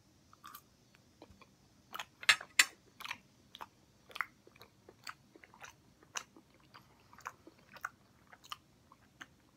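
A person chewing a mouthful of syrup-soaked waffle with the mouth closed: a run of short, irregular clicks, loudest about two to three seconds in.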